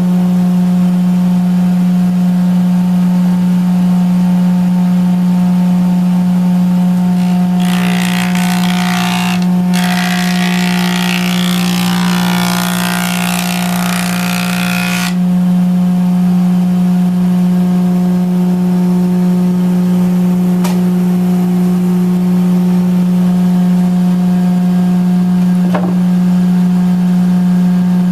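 A 1915 Porter jointer runs with a steady hum. About a quarter of the way in, a board is fed across its spinning cutterhead, giving a loud rough cutting noise that breaks off briefly after about two seconds and then runs on for about five more seconds. After that only the hum is left, with a couple of light clicks near the end.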